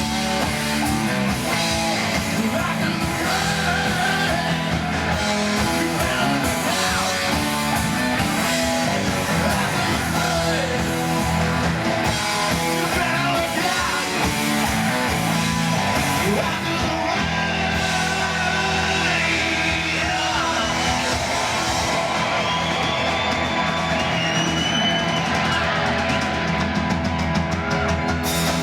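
Rock music with electric guitar and singing, loud and continuous, with gliding guitar or vocal lines in the second half.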